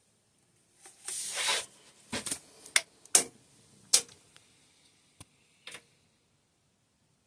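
Handling noise: a brief rustle about a second in, followed by about six separate sharp clicks and knocks.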